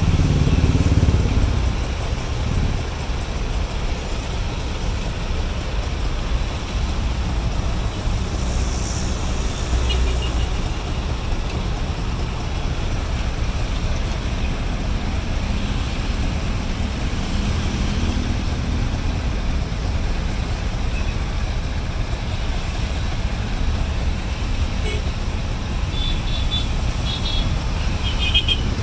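Steady low rumble of slow city traffic heard from inside an open-sided auto-rickshaw, its own engine and the surrounding vehicles running together. A few short horn toots sound near the end.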